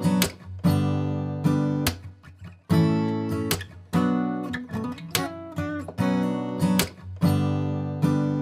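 Background music: acoustic guitar strumming chords, struck about every half second to second, each ringing out before the next.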